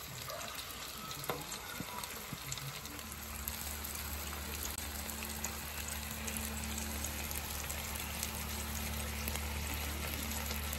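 A5 Wagyu ribeye steak sizzling on a hot steel flat-top griddle, its fat frying with a steady hiss. About three seconds in, a steady low hum joins and the sizzle grows slightly louder.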